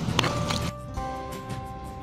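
A few sharp clicks and scrapes of a stone pestle on a stone mortar of spice paste, then background music with long held notes comes in about two-thirds of a second in.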